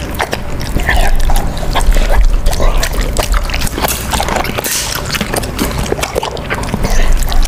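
A large dog chewing raw meat and liver right at the microphone: wet, smacking bites and chews in a quick, irregular run of clicks and squishes.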